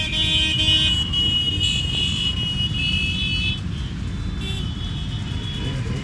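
A procession of motorcycles riding past, engines running in a continuous low rumble. Over it a horn sounds in long held blasts: one over the first three and a half seconds, another over the last two.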